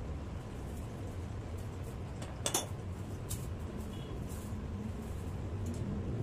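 Steady low background rumble, with a few light clicks and one sharper click about two and a half seconds in.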